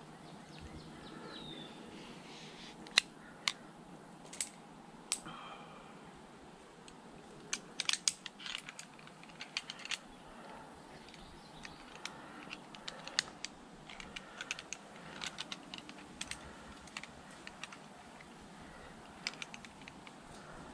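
Scattered sharp clicks and clacks of rope-climbing hardware, a rope grab and its carabiner, being handled on a rope tied around a tree, with a quick cluster of clicks about eight seconds in.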